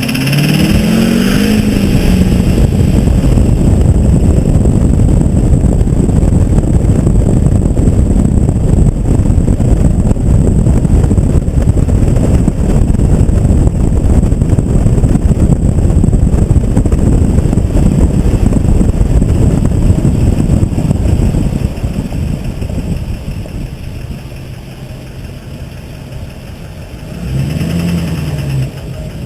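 LB7 Duramax 6.6-litre V8 turbodiesel revving up, then running loud and steady for about twenty seconds. It drops back quieter, then revs up and down once near the end, with a high whine at the start and during that last rev. The owner puts the sound down to a bad turbocharger.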